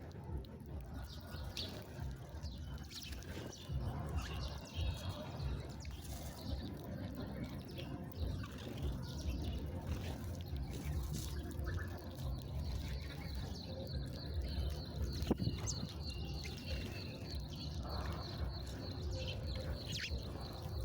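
Small birds chirping in scattered short calls. From just past the middle, a steady high note is held under the chirps, all over a low background rumble.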